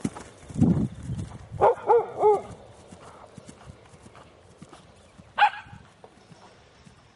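Horse hooves thudding on grass at a canter, with a dog barking three times in quick succession about two seconds in and once more about five seconds in. A brief low rumble comes just under a second in.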